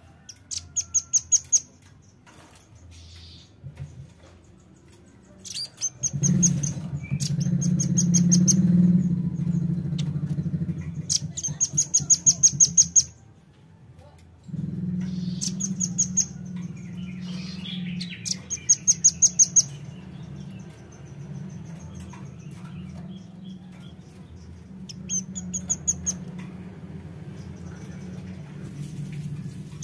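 Velvet-fronted nuthatch calling: about seven short bursts, each a fast trill of high, thin notes. A steady low hum runs under the calls from about six seconds in, with a short gap near the middle.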